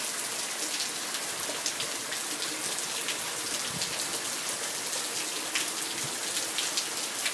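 Heavy rain falling steadily on wet paving stones and a pool's surface: a dense, even hiss with many sharp individual drop hits.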